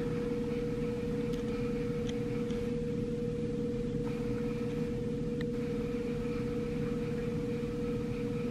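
A steady mechanical hum with one strong mid-pitched tone, like a running room appliance, with a few faint, brief clicks.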